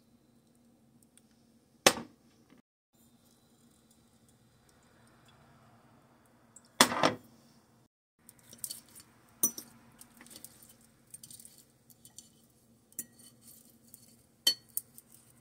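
Metal fork clinking and tapping against a ceramic plate of fried food: a sharp clink about two seconds in, a louder clatter about seven seconds in, then a run of lighter clicks and one more sharp clink near the end.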